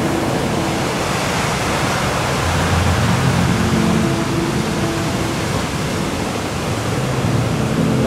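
Large ocean waves breaking and surf rushing up the beach, a loud, steady roar of water.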